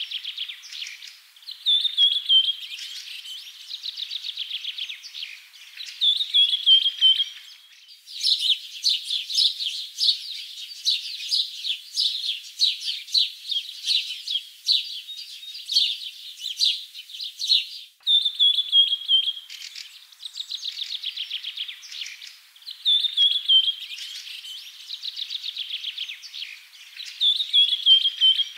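Birds chirping and trilling continuously, with repeated short falling trills. There are abrupt breaks about 8 and 18 seconds in.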